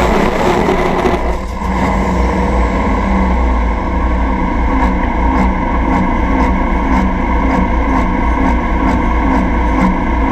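Turbo diesel engine of an IH 1066 pulling tractor near full power, then about a second and a half in it comes off the throttle at the end of the pull and settles to a rough, loping idle with a regular beat.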